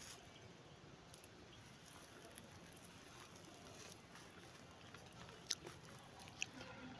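Near silence: faint outdoor background with a few soft, brief clicks, about four of them scattered through.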